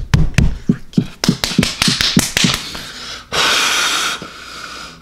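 A man's heavy breathing: a quick run of short huffs, then a long, loud, breathy exhale about three seconds in.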